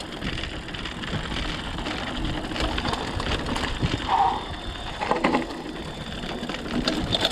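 Mountain bike being ridden over a rough trail: tyres crunching on stones and the bike rattling over the bumps, with a low rumble underneath.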